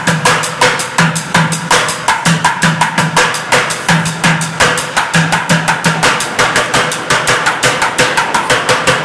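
Plastic buckets drummed with sticks in a fast, steady rhythm of several strokes a second, deep bucket thuds mixed with sharper rim and side cracks.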